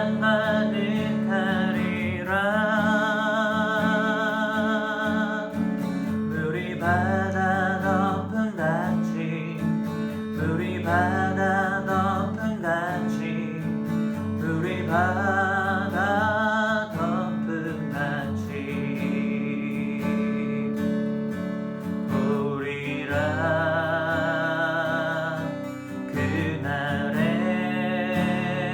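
Acoustic guitar worship music: a steady guitar accompaniment under a melody line of long held notes with vibrato, phrased in short passages.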